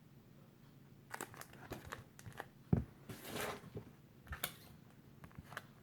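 Comic books in plastic bags being handled and shuffled: crinkling plastic with a run of light clicks and taps, a short swishing rustle about halfway through and a soft thump just before it.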